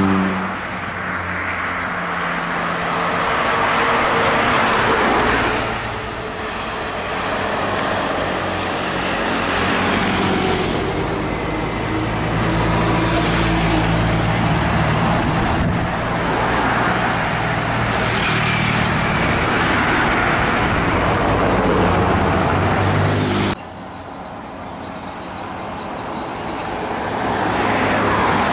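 Road traffic passing close by: buses, a truck, cars and motorcycles going by one after another, their engines and tyres swelling and fading. The sound drops suddenly about four-fifths of the way through, then builds again as the next vehicles approach.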